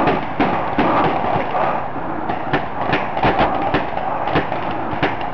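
Paintball markers firing across the field: a dozen or so sharp pops at irregular spacing, over a steady background hiss.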